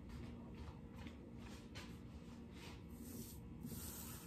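Quiet room tone with a faint steady low hum and a few soft handling noises.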